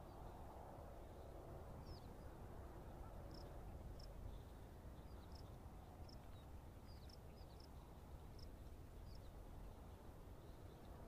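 Near silence: faint outdoor ambience, a low rumble with scattered short, high chirps.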